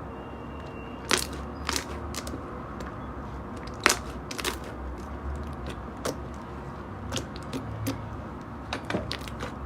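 Knife cutting through dry soap, giving irregular crisp cracks and crunches. The sharpest snaps come about a second in and again about four seconds in, over a steady low hum.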